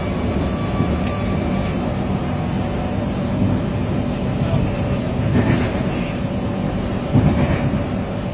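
Steady rumble of a moving passenger train heard from inside the coach.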